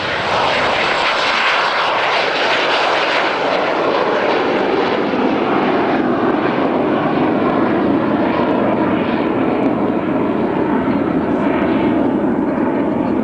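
Gloster Meteor T.7's twin Rolls-Royce Derwent turbojets at takeoff power as the jet lifts off and climbs away: a loud, steady roar whose high hiss fades, leaving a deeper roar as it draws away.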